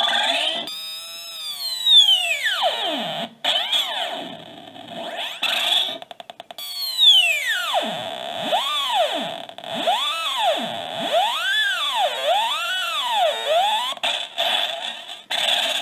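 Circuit-bent sound-effects gravestone toy giving out glitchy electronic noise. It makes long falling pitch sweeps, then a run of rising-and-falling whoops about once a second, broken by stuttering, buzzy cut-outs.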